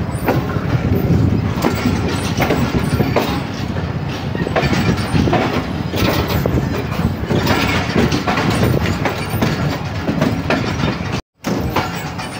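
Passenger train running at speed, heard on board: a steady rumble of the coaches with wheels clicking over rail joints. The sound cuts out for an instant near the end.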